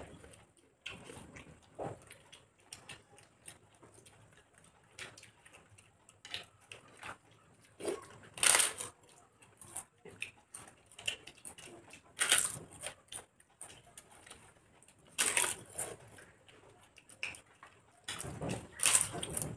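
Close eating sounds of two people eating by hand: soft, wet chewing and lip-smacking, broken about four times by loud, crackly crunches of crisp fried papad being bitten.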